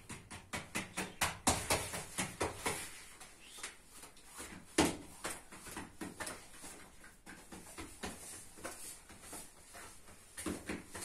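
Hands patting and slapping flatbread dough on a cloth-covered floor: an irregular run of soft pats, closer together in the first few seconds, with one louder slap about five seconds in.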